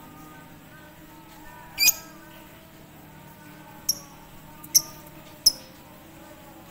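Lovebird giving four short, shrill chirps, spread over the few seconds, over faint background birdsong.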